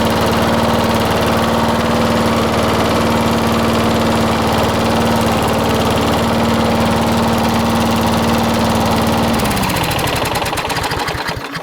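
Briggs & Stratton 6.0 HP Quantum single-cylinder engine on a lawn mower running steadily, then shut off about nine seconds in, its pitch falling as it winds down to a stop.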